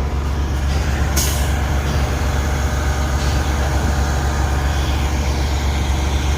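A concrete pump truck's diesel engine running steadily, with a short hiss of air about a second in.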